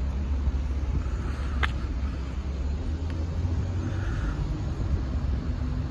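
Low, steady rumble of road vehicles idling and running at a level crossing, with one sharp click about one and a half seconds in.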